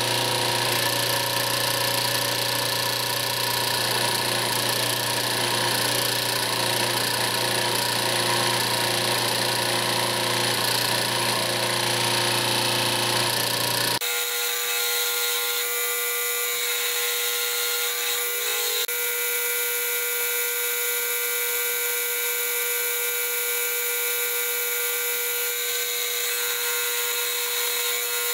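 Motor-driven shop press running steadily while its ram pushes a bearing off a tractor transmission shaft through a bearing puller. About halfway through, the deeper part of the sound drops away abruptly, leaving a steady higher hum.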